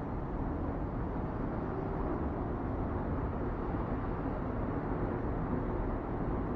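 Up escalator running: a steady, even low rumble and hum of the moving steps and drive, heard from a step as it carries the rider upward.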